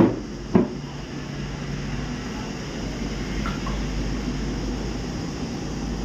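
Steady low background hum, with a couple of short handling sounds in the first second while the laptop motherboard is lifted out.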